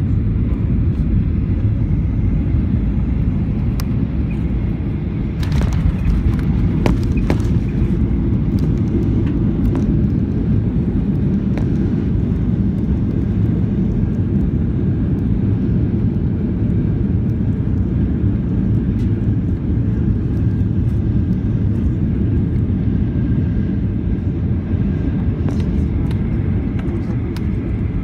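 Boeing 737 cabin noise during the landing and rollout: a steady, loud, low rumble of engines and wheels on the runway. A few knocks and rattles come about five to seven seconds in.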